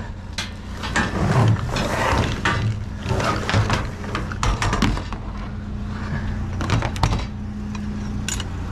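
Irregular clattering and knocking of junk being handled and shifted while rummaging through curbside trash, over a steady low hum.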